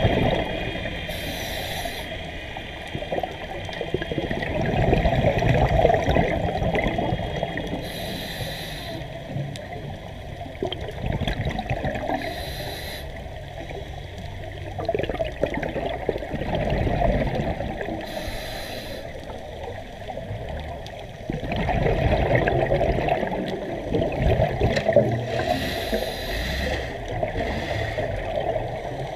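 Scuba diver breathing through a regulator underwater: about five short hissing inhalations several seconds apart, each followed by a long gurgle of exhaled bubbles.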